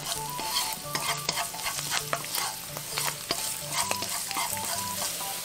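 Chopped preserved radish sizzling steadily in hot sesame oil in a nonstick wok as it is frying until golden. Wooden chopsticks stir it, with scattered sharp clicks as they tap and scrape the pan.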